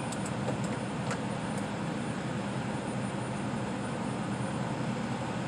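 A steady mechanical drone with a low hum, with a few light clicks in the first second and a half.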